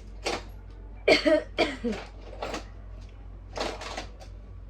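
A woman with a head cold coughing in a series of short, breathy bursts, the loudest about a second in.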